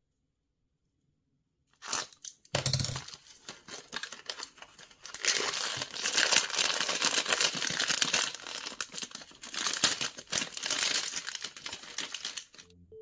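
Foil blind-bag wrapper being torn open and crinkled by hand to free a small vinyl figure, a dense run of crackling, tearing noise starting about two seconds in.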